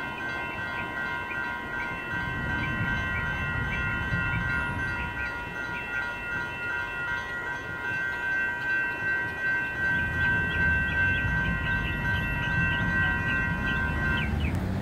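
Railroad crossing electronic bells, General Signals and WCH Type 2, ringing together in a steady repeating clang that stops suddenly just before the end as the crossing deactivates. Road traffic rumbles underneath.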